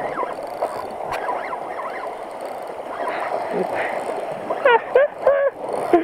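Sea water washing and gurgling against the rocks, a steady wash, with a few short shouts about five seconds in.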